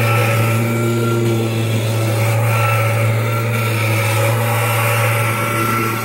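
Kirby Generation 4 upright vacuum cleaner running steadily, its motor giving a strong low hum with a few steady higher tones above it. It sounds normal while running.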